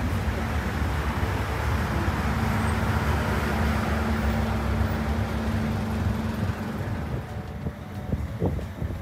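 Road traffic passing close by on a busy multi-lane road: engines and tyre noise, with a vehicle's engine hum that swells in the middle and fades away about seven seconds in.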